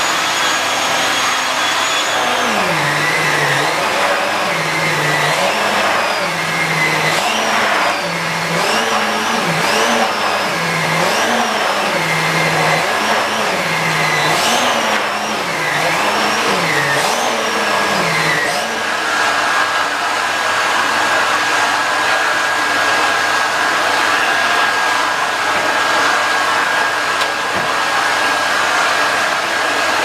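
Nilfisk GM80 canister vacuum cleaner running, its floor nozzle pushed back and forth over a thick shag rug, so the motor's pitch dips and recovers roughly once a second. About two-thirds of the way through the strokes stop and it settles to a steady hum.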